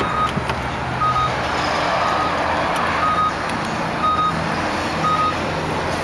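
2004 Land Rover Freelander's warning chime beeping about once a second, a short single-pitched tone each time, with the driver's door open. The engine idles steadily underneath.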